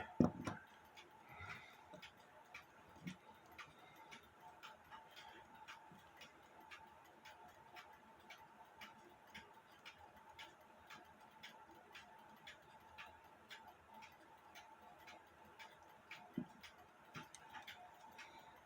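Balance-wheel movement of a circa-1920 alarm clock ticking faintly and evenly, with a couple of light knocks from handling near the end.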